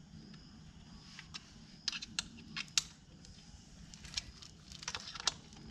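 Scattered light metallic clicks and taps of an Allen key working the chain-cover screws during their final tightening, in a cluster about two seconds in and another near the end.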